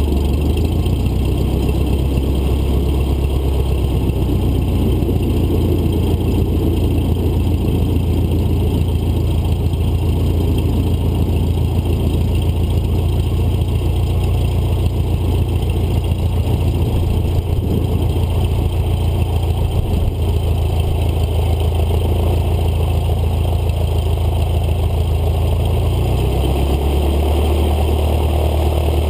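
Cessna 152's four-cylinder Lycoming engine and propeller running steadily at taxi power, heard from just outside the fuselage under the wing. The engine note shifts slightly about a second in and again near the end.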